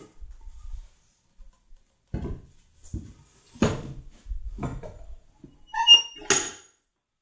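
A solid wooden chair seat blank handled on a workbench: a few knocks and thuds as it is turned and set down against the bench, with a brief squeak just before the last, loudest knock.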